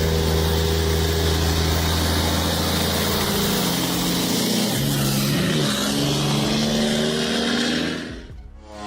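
Car engine running with a steady note, then stepping down and back up in pitch several times in the middle as the driver downshifts; the engine sound fades out near the end.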